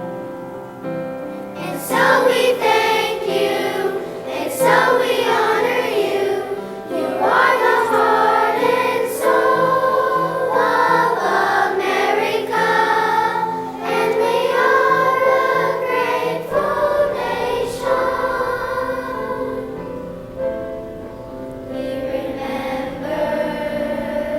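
A choir singing with instrumental accompaniment; the voices come in about two seconds in over the held accompaniment.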